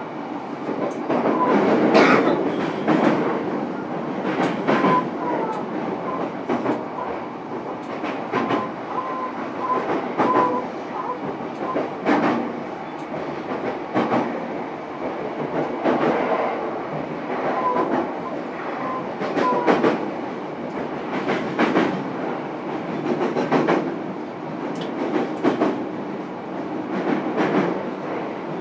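JR East E233-series electric train heard from inside a motor car while running between stations: a steady rumble with the wheels knocking over rail joints every second or two.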